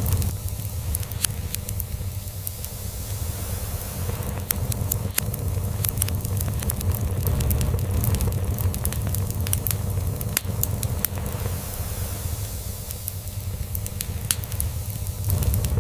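Log fire crackling with frequent sharp pops and snaps, over a continuous low cat purr that swells and fades slowly.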